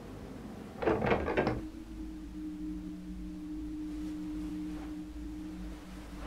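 A quick run of three or four knocks or scrapes about a second in. Then a single low sustained tone sets in and holds steady, like an eerie drone in a film score.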